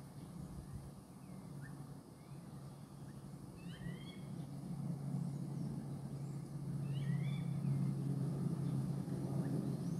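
A bird calling a few times with short rising chirps, in small clusters, over a steady low hum that grows louder about halfway through.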